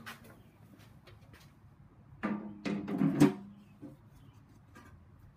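Metal oil pan clanking and rattling against the engine block as it is set in place for a test fit without a gasket, a short cluster of knocks about two to three seconds in with a brief ringing tone, loudest just after three seconds.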